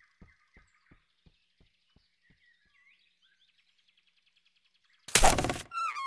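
Cartoon soundtrack: a faint run of soft ticks, about three a second, fading away, with faint bird chirps, then quiet. About five seconds in comes a sudden loud burst of noise lasting about half a second, and right after it a wavering high note slides down and holds.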